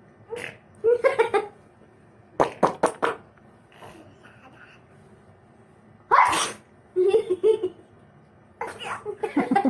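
A person's voice making short, non-word vocal sounds in imitation of animals. Among them are sharp sneeze-like bursts and brief squeaky calls, with a loud hissing burst about six seconds in.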